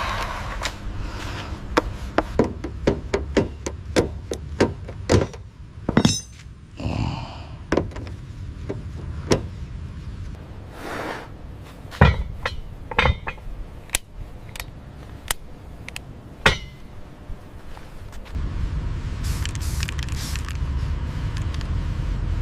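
A series of sharp knocks and taps, about two a second at first and then more spaced out, followed a few seconds before the end by a steady low rumble.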